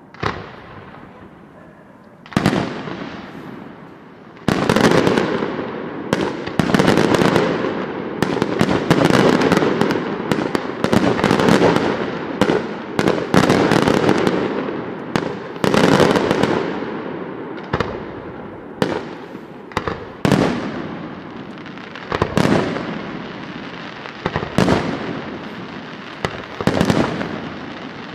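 Aerial firework shells bursting. There are a few single bangs at first, then from about four seconds in a dense run of rapid bangs that lasts some twelve seconds, then single bangs every second or two, each trailing off in an echo.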